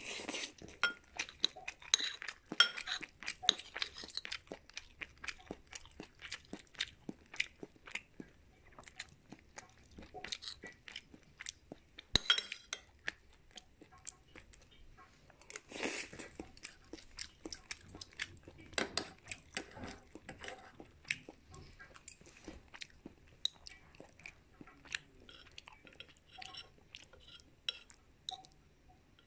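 Close-miked chewing and crunching of food, a dense run of crisp clicks and crackles from the mouth. It is loudest in the first few seconds, with a few longer crunching bursts later on.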